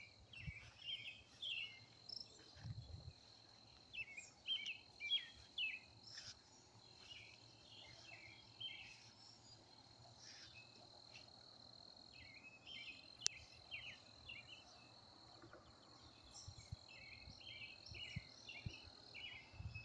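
Outdoor insect drone, a steady high-pitched trill, with birds chirping in short bursts of song every few seconds. A few faint low thumps are also heard.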